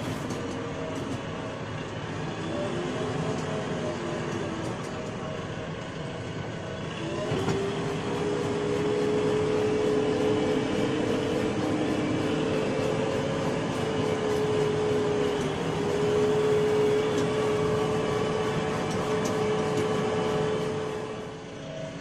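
JCB 3DX backhoe loader's diesel engine running as the machine drives along, heard from inside the cab. The engine note rises about seven seconds in and then holds steady.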